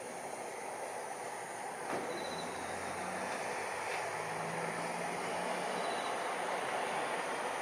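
Distant roar of an FDA Embraer regional jet's engines climbing out after takeoff: a steady, rushing noise that grows slightly louder. A faint click comes about two seconds in.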